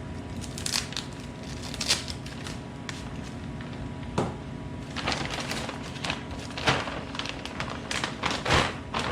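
Packaging being opened and handled: crinkling and rustling with scattered sharp clicks and knocks, busier in the second half, over a steady low hum.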